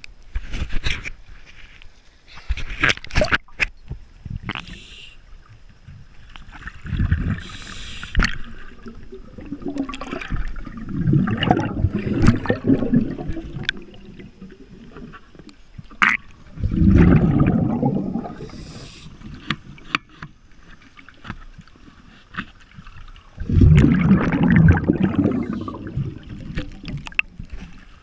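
A scuba diver's exhaled breath bubbling out of the regulator, heard underwater as a rumbling gurgle every few seconds, with scattered sharp clicks between breaths.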